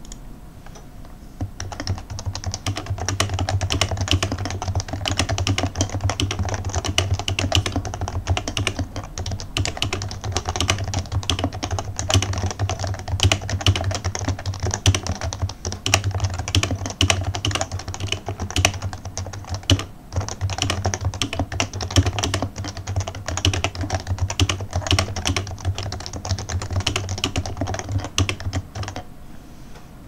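Rapid touch-typing on a Happy Hacking Keyboard Professional 2 with 45 g uniform Topre capacitive switches (rubber dome over a conical spring): a dense, continuous patter of keystrokes. It starts about a second and a half in, pauses briefly about two-thirds of the way through, and stops shortly before the end.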